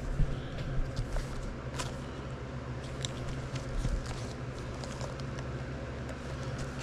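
Gloved hands handling and turning over a cardboard trading-card hobby box: light rustling with scattered sharp ticks and taps, over a steady low hum.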